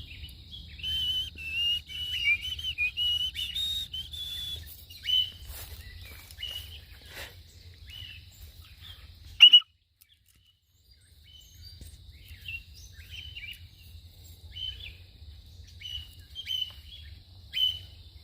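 Cockatiel calling with short whistled chirps: a quick run of calls in the first few seconds, one loud call about halfway, then scattered calls after the sound briefly drops out.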